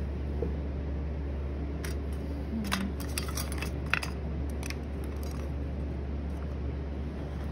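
Steady low hum of an electric pottery wheel's motor. Over it come a few light clicks and taps from small hand tools, the sharpest about four seconds in.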